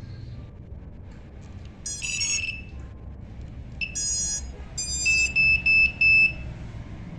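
Electronic startup beeps from a 5-inch FPV quadcopter: a tone about two seconds in, another about four seconds in, then four short beeps in quick succession, over a steady low rumble.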